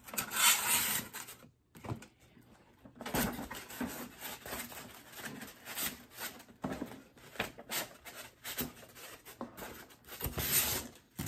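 A cardboard gift box being handled and packed: irregular scraping, rustling and knocks of cardboard pieces as an insert is slid back in and the flaps are worked, with a short lull about two seconds in.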